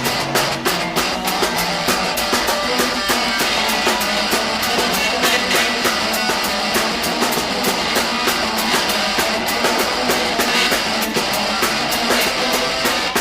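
Instrumental passage of a rock song: a fast, steady drum beat under a full band with guitar, no vocals.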